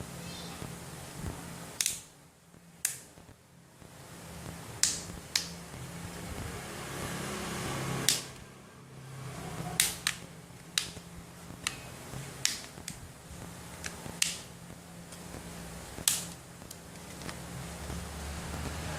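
Sharp clicks and snaps from tools and plastic parts while a smartphone is taken apart, about a dozen at irregular intervals, over a steady low hum.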